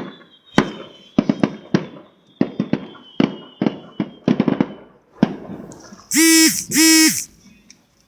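Neighbourhood fireworks going off: a rapid run of sharp bangs and crackles, several a second, for the first five seconds or so. Near the end come two loud, steady, pitched tones, each about half a second long, one right after the other.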